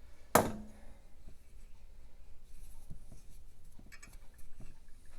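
Small metal engine parts being handled on a workbench while a conrod is taken apart: one sharp metallic clank with a short ring about half a second in, then faint clicks and rustling.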